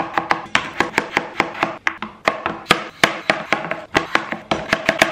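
Chef's knife slicing through raw potatoes and striking a cutting board: a quick, uneven run of sharp chops, several a second, with soft music underneath.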